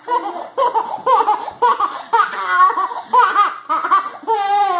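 High-pitched laughter: a quick run of short 'ha' syllables, two to three a second, with a longer drawn-out one near the end.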